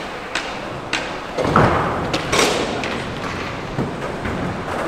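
Skateboard knocks and thuds on a skatepark's ramps and ledges: a few sharp clacks, then a heavier thud about a second and a half in and another sharp noisy hit soon after.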